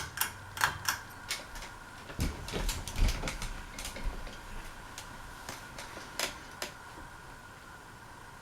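Hunter Beacon Hill ceiling fan running on low speed just after being switched on, with a steady hum. Irregular sharp clicks and ticks come thickly at first and thin out, and there is a brief low rumble about two to three seconds in.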